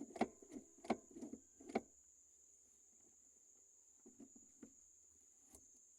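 A few light clicks and knocks of parts being handled in the first two seconds, then near quiet with a few faint ticks over a faint steady high-pitched tone.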